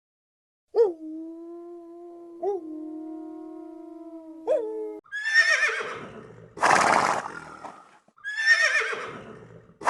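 A steady held tone that is struck anew twice, then a horse whinnying twice, each call starting high and falling in pitch, with a short noisy burst between the two whinnies.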